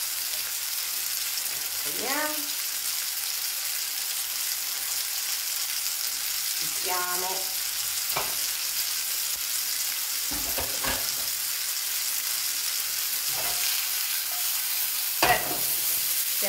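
Food frying in a pan with a steady sizzle while turkey rolls are turned and stirred with chopsticks. A few light clicks sound from about halfway on, the loudest near the end.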